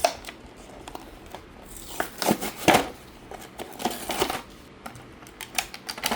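Toy car packaging being ripped open by hand: card tearing and plastic crinkling, with a run of sharp clicks and knocks that is loudest about two to three seconds in.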